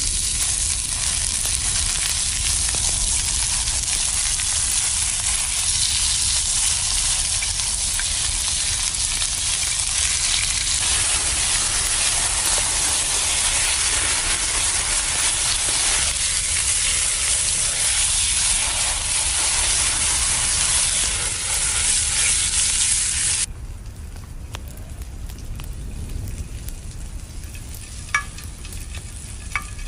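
Food sizzling in hot oil in a pan over a campfire, a steady loud sizzle that stops abruptly about 23 seconds in, leaving a much quieter sizzle with a few faint clicks near the end.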